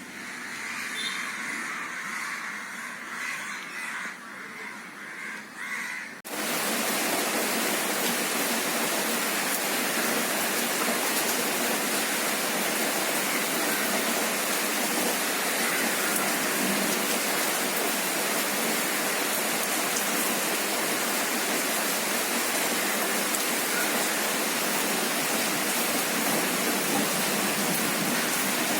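Crows cawing repeatedly for about the first six seconds, then an abrupt switch to the steady, dense hiss of heavy rain that runs on unchanged.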